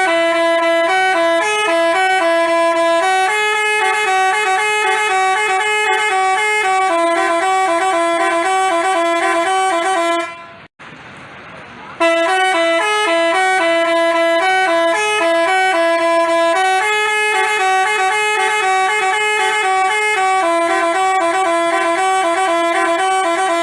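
Basuri telolet horn, the multi-tone Indonesian bus horn, playing a quick melody of stepped notes. It stops about ten seconds in, then after a short pause plays the same tune again.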